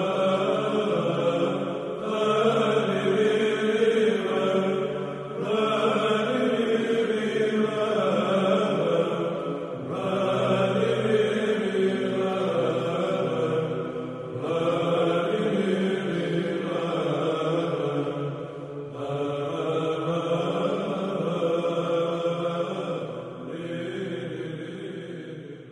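Orthodox Byzantine chant: sung phrases over a steady low held note, each phrase lasting about four to five seconds, fading out at the end.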